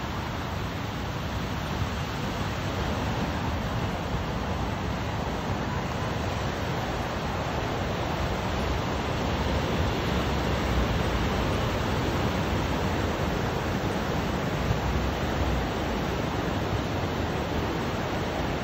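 Ocean surf breaking over rocks and washing up the shore in a steady rush, with wind on the microphone.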